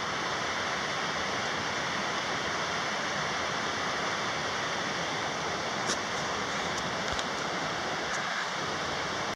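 A steady, even rushing hiss, with a few faint clicks about six and seven seconds in; it cuts off suddenly at the end.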